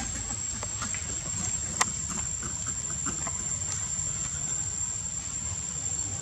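Insects, crickets or cicadas, droning on one steady high-pitched note over a low rumble, with a single sharp click about two seconds in.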